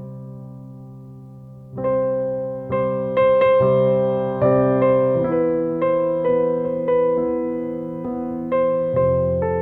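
Background music: slow piano or electric piano notes. A held chord fades at first, then a new note is struck every half second to a second from about two seconds in, each ringing out and decaying.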